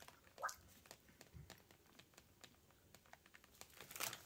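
Near silence with faint scattered clicks and a brief falling tone about half a second in. Just after four seconds comes a short crinkle of a foil snack bag being picked up.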